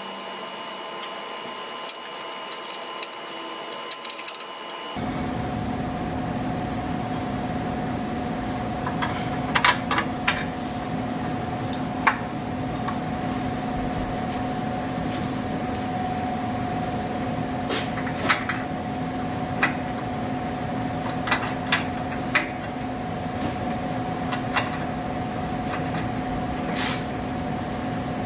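A shop heater fan running with a steady hum that steps up and gets louder about five seconds in, as if switched to high speed. Over it come scattered sharp metal clinks of a wrench working on exhaust parts under the vehicle.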